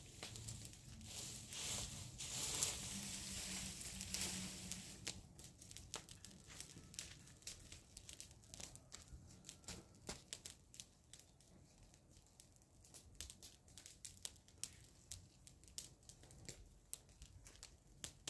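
Dry leaves and fronds rustling and crunching for the first few seconds, then scattered light clicks and crackles.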